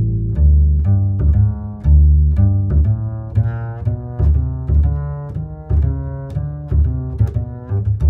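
Instrumental background music: a run of pitched notes with sharp attacks over a strong low bass line.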